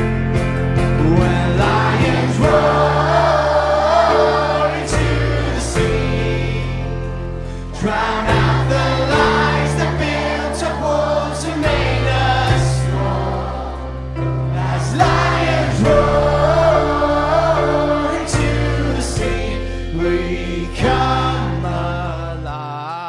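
Live band music with strummed guitar and held bass notes, a choir of children singing the song along with the band's singer.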